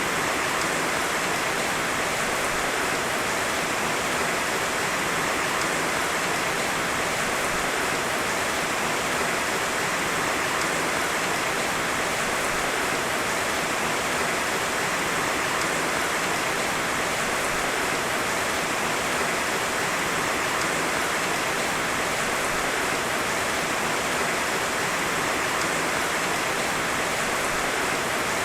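Heavy rain falling, a steady even hiss with no thunder.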